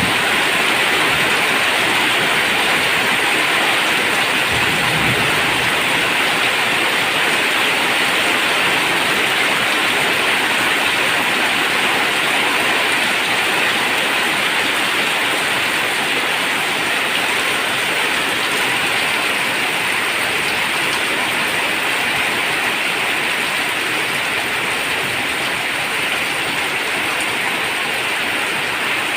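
Heavy rain drumming steadily on a tin roof, a dense even patter.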